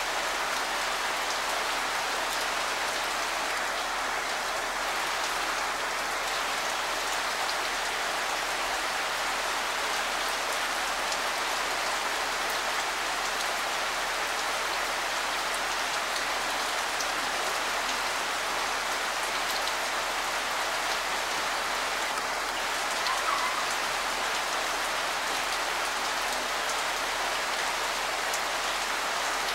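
Steady rain falling, an even hiss that keeps up without a break.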